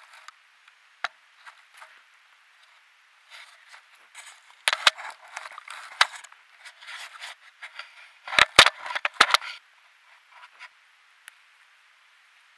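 A brown bear's muzzle and fur scraping, rubbing and knocking against a trail camera, right on top of its microphone. There are scattered small clicks, then two bursts of rapid knocks and scrapes about five and about nine seconds in; the heaviest thumps come in the second burst.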